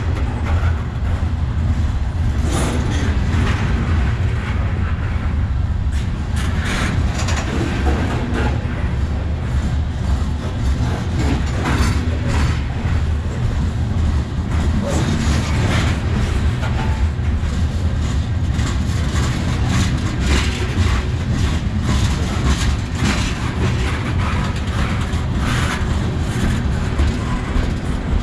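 Freight train cars rolling past up close: a steady, heavy rumble of steel wheels on the rails, with irregular sharp clanks and clacks every few seconds.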